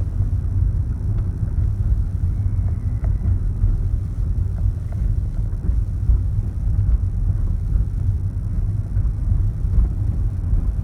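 Steady low rumble with no rhythm or pitch, loud and unbroken, with a few faint ticks over it.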